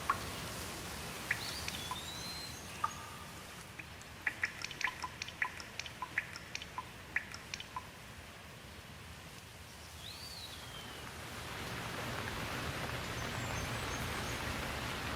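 Water drops falling in a quick irregular patter, with a few short rising-and-falling bird whistles. About eleven seconds in, a steady hiss of rain swells up.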